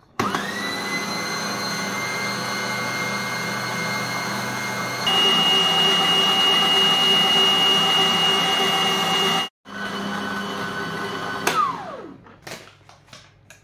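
Siemens marché 800 W kitchen machine's motor starting with a rising whine and running steadily, driving the whisk through cake batter. It gets louder about five seconds in and cuts out for a moment near ten seconds. Near the end it is switched off and winds down with a falling whine, followed by a few light knocks.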